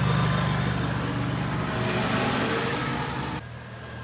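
A vehicle running with a steady low hum and road or wind noise; the sound drops abruptly quieter about three and a half seconds in.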